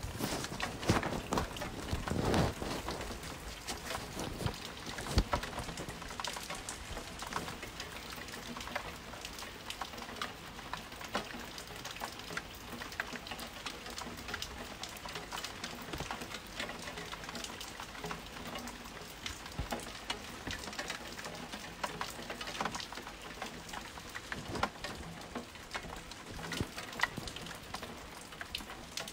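Heavy thunderstorm rain, with dense irregular drops striking hard surfaces and a few louder hits in the first five seconds.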